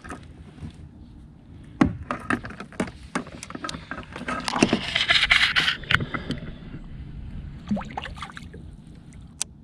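Knocks and clatter on a fishing kayak as a small live mackerel bait is handled and cast, with a splashy rush of water noise about halfway through.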